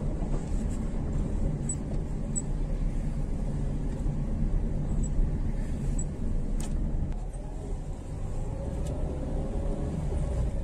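Engine and road noise of a vehicle driving slowly through town, heard from inside the cabin: a steady low rumble. A single sharp click about two-thirds of the way through, and near the end a faint whine rising in pitch as it picks up speed.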